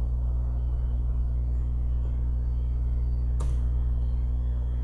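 Steady low electrical hum from the recording setup, with a single mouse click about three and a half seconds in as the Lathe modifier is picked from the list.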